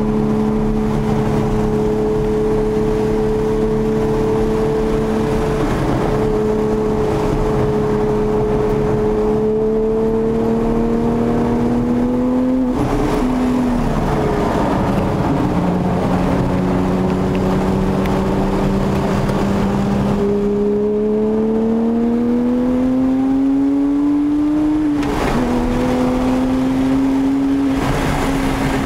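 Porsche 997 GT3's flat-six engine with a Sharkwerks exhaust bypass, heard from inside the cabin under hard track driving. The engine note holds and slowly rises, dips sharply about halfway through, climbs steadily again, and changes pitch twice more near the end as the revs fall and pick up.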